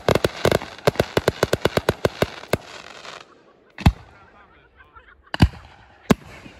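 Fireworks display: a rapid string of sharp bangs, about five a second, from a multi-shot firework cake, ending with a brief fading crackle about three seconds in. Then three separate deep booms of larger shells follow over the next three seconds.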